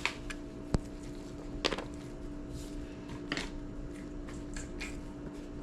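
Sharp clicks and light scraping of a pry tool working at the plastic clips of an iPod classic's case, the loudest click about three-quarters of a second in, two more near the middle. A steady hum runs underneath.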